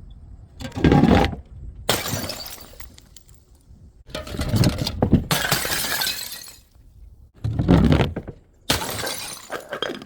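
Glass bottles being smashed one after another: about five crashes, each a heavy thud with a burst of shattering glass and a scatter of shards trailing after it. The longest crash comes about halfway through.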